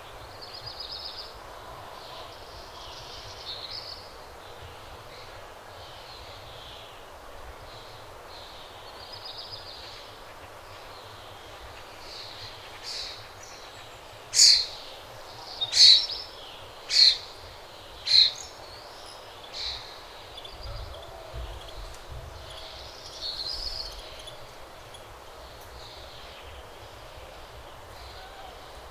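Dawn bird chorus: several birds chirping and singing softly throughout, with a run of about five loud, sharp calls from one nearby bird around the middle, over a low background rumble.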